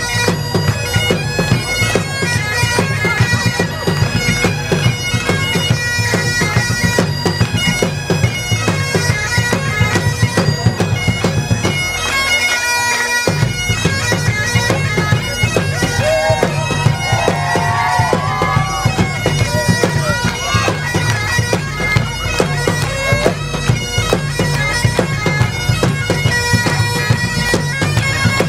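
Several Great Highland bagpipes playing a lively tune in unison, drones sounding under the chanters' melody, over a steady beat on big bass drums. The drums drop out for about a second near the middle, then come back in.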